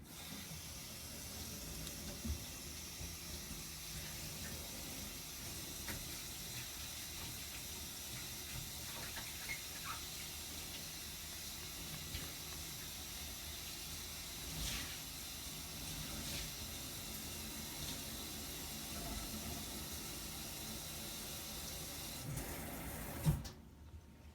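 A steady rushing hiss, like water running from a tap, that starts at once and cuts off abruptly near the end with a short thump.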